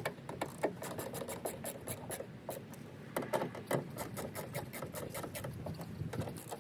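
Hand screwdriver driving screws to fasten a speaker adapter plate into a car door: a quick run of small sharp clicks with rubbing and scraping.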